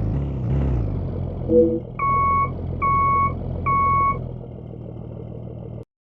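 A bus engine idling, with a short horn toot about a second and a half in, then three identical reversing-alarm beeps, each about half a second long and under a second apart. All sound cuts off abruptly near the end.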